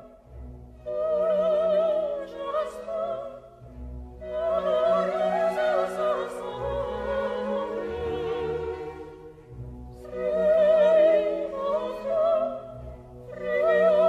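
Opera music: a solo voice singing long phrases with a wide vibrato over orchestral accompaniment.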